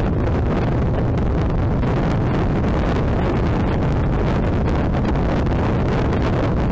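Motorcycle riding at speed: its engine runs steadily under heavy wind noise buffeting the microphone.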